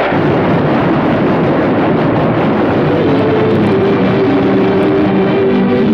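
Fast-flowing mountain river rushing, a loud steady wash of water noise. Background music comes in over it about halfway through.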